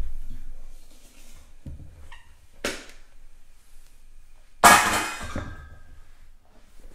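Kitchen handling knocks, then a loud clunk about two-thirds of the way through as a hot baking dish is set down on a stone countertop, with a brief ringing after it.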